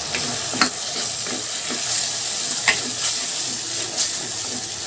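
Onion, tomato and green chilli frying in oil in an earthenware clay pot, making a steady sizzle, while a wooden spatula stirs and scrapes against the pot with a few light knocks.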